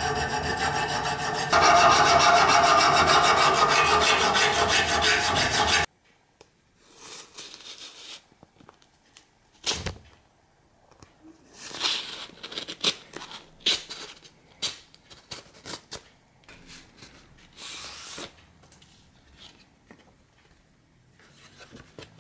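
Hand file rasping along a forged steel blade clamped in a vise, which stops suddenly about six seconds in. Then much quieter paper sounds follow: a thump, and rustling and tearing as an envelope is slit open and the letter pulled out.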